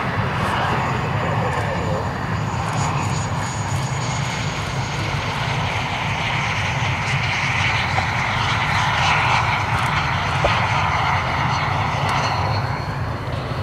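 BAE Hawk T1 jet trainer rolling along the runway, its single Adour turbofan running with a steady rushing noise over a low rumble and a thin high whine.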